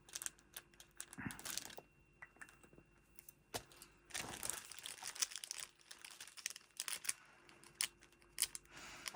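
Paper stickers and their wrappers rustling and crinkling as they are handled and sorted, with scattered light clicks and taps.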